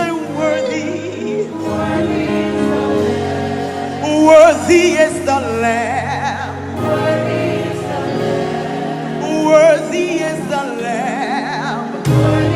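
Live gospel worship music: a singer's voice wavering with vibrato over steady, sustained chords, with choir voices.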